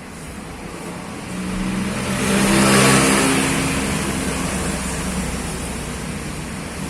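An engine vehicle passing by: its engine note grows louder to a peak about three seconds in, then slowly fades away.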